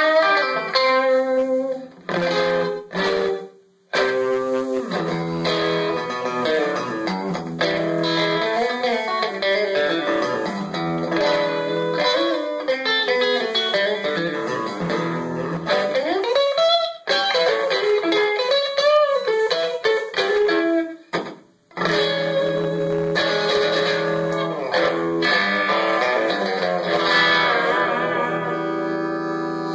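Gretsch Pro Jet electric guitar played through an Orange Tiny Terror tube combo amp with a crunchy overdrive and Boss RE-20 slapback echo, picking rockabilly licks and chords. A few bent, wavering notes come about halfway through, with two short pauses in the playing.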